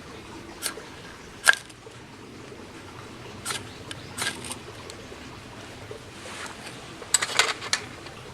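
Firewood cracking and snapping: a few sharp pops spread out, the loudest about a second and a half in, and a quick run of snaps near the end.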